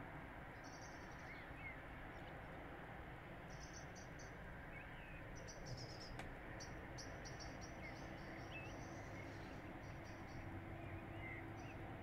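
Small birds calling: short, high chirps in quick runs, repeated many times, with a few lower twittering notes, over a faint steady background hiss.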